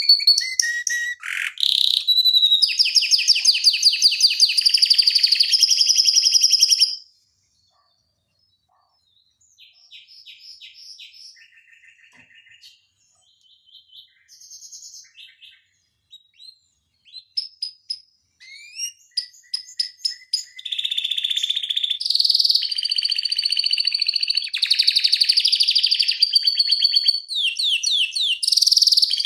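Domestic canary singing long, fast rolling trills: loud rolls for the first seven seconds, a short pause, then softer scattered phrases, and full loud rolling song again from about twenty seconds in, with a few quick falling notes near the end.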